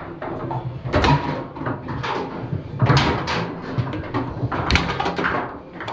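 Foosball table in play: the hard ball cracking off the players' figures and the table walls in quick, irregular knocks, with the strongest hits about a second in, about three seconds in, and just before five seconds.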